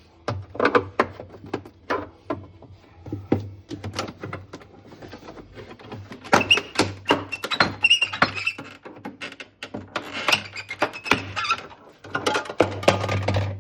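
Rapid, irregular clicks and knocks as a stuck interior panel of a refrigerator is wiggled and pried loose, busiest in the middle and again near the end.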